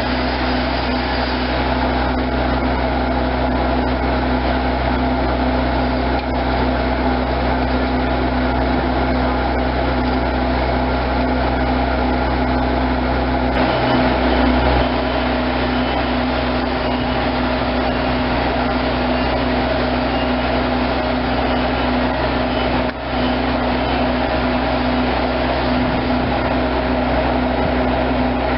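An engine running steadily, a constant low drone that does not change in pitch.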